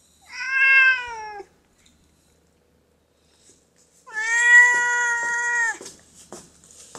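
Domestic cat meowing twice: a call of about a second that drops in pitch at its end, then a longer, steadier meow about four seconds in.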